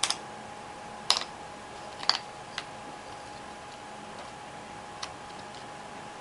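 Jigsaw puzzle pieces clicking and tapping as they are handled and set down: five short, sharp knocks, the loudest just over one and two seconds in, over a steady hiss.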